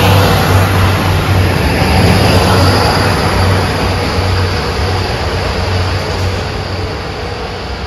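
Two coupled SNCF X 73500 diesel railcars moving off through a station, the diesel engines running with a steady low drone over wheel and rail noise that slowly fades as the train draws away.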